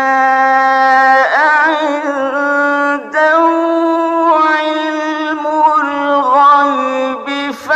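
A male reciter's voice in melodic (mujawwad) Quran recitation, drawing out long, ornamented held notes. He takes a short breath about three seconds in, picks up again on a higher note, and breaks once more near the end.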